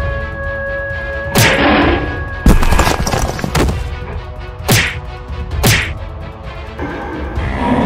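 Fight sound effects: a series of about six sharp whacks and thuds, spread over a few seconds, over ongoing background music.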